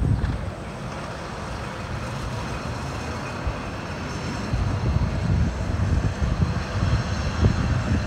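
Hi-rail truck rolling along the rails and moving away, quiet on smooth unground rail without the buzzing that freshly ground rail gives it. A low rumble grows in the second half.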